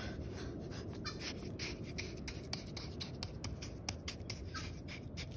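Handheld metal-detecting pinpointer scraping and rubbing through wet, gritty sand, a run of short scratchy clicks over a low steady rush.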